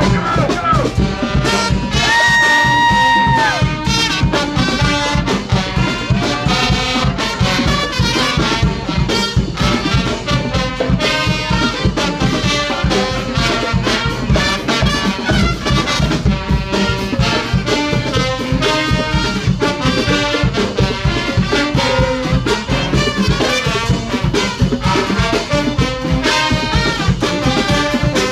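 Brass band playing live: horns over a steady beat, with one long held note about two seconds in.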